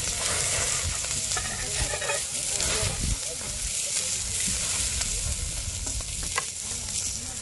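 Pork belly slices sizzling steadily on a slotted grill plate over a charcoal fire, with a few clicks of metal tongs as the slices are lifted and moved.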